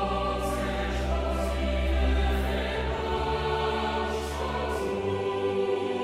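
Background music of choral voices over long held tones, with a low bass note that fades out near the end.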